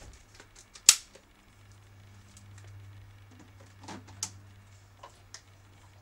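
Plastic parts of a Capresso Coffee a la Carte coffee maker being handled and set in place: a series of sharp clicks and knocks, the loudest about a second in, over a low steady hum.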